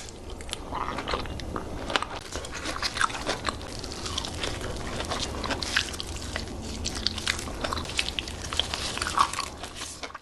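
Close-miked mouth sounds of a person biting and chewing fresh fruit: a dense run of short, irregular clicks and smacks.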